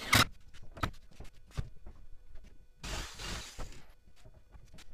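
Knocks and clatter of pine boards and a cordless drill being handled on a wooden workbench: one loud knock right at the start, then several lighter knocks, and a rough rustling noise lasting about a second near the three-second mark.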